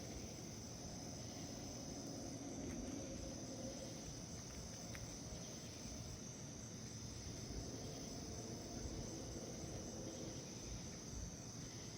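Crickets chirping steadily over a faint low rumble, the unexplained sound that the recorder wonders may be a distant train.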